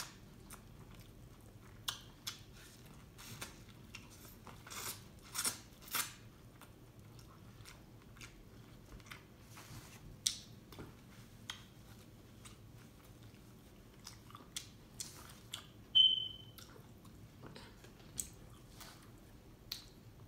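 A person chewing and eating a seafood boil close to the microphone: scattered short smacks and clicks of chewing, with one brief high squeak about sixteen seconds in.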